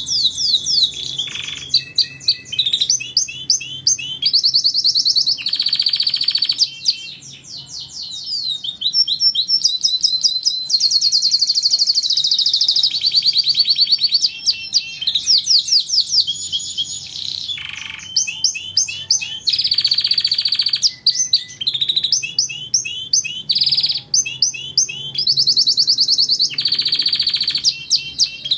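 Domestic canary singing a long, high-pitched song of fast trills and rolls. It switches between runs of rapidly repeated notes every second or two, with only brief pauses.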